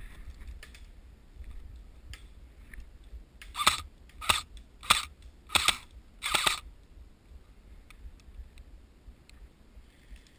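M4-style airsoft electric gun (AEG) firing five single shots, each a sharp clack about two-thirds of a second apart.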